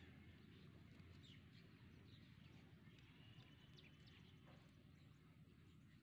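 Near silence: faint outdoor ambience with a steady low rumble and a few faint, short bird chirps. There is one faint tap about four and a half seconds in.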